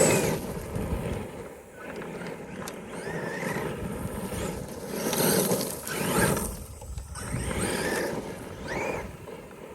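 Electric motor and drivetrain of a Traxxas E-Revo RC truck whining in repeated throttle bursts, the pitch rising and falling with each surge, mixed with the noise of the tyres on the ground.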